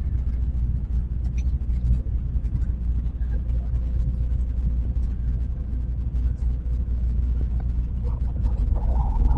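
Steady low rumble of a Tokaido Shinkansen train running at speed, heard inside the passenger cabin, with a few faint ticks and creaks.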